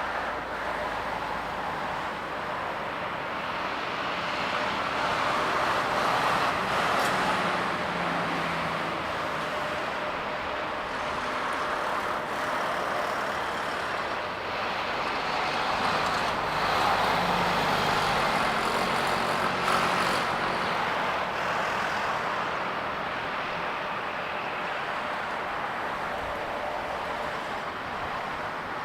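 Jet engines of a Boeing C-40A Clipper, twin CFM56-7 turbofans, running during takeoff. The noise is a steady rush with a faint whine that swells twice.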